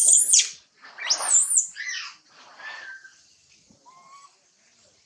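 Baby long-tailed macaque screaming to be nursed: two loud, shrill squeals in the first second and a half, then a few fainter, lower whimpering calls that die away about four seconds in.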